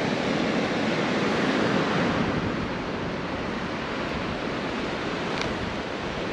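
Steady rush of ocean surf breaking on a beach, with wind buffeting the microphone; a little louder for the first couple of seconds, then settling.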